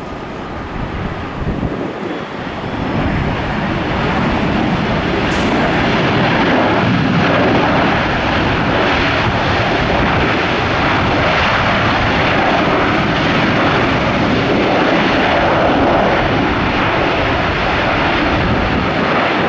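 Jet engines of an American Airlines Airbus A321 moving along the runway: a loud, steady rumble and rush that builds over the first few seconds and then holds.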